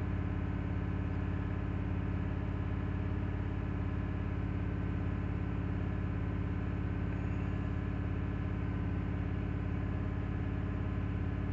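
Freshly rebuilt Ford 5.4-litre three-valve V8 held steady at about 2000 RPM during its break-in run, heard from inside the truck's cab. The engine gives an even, unchanging drone.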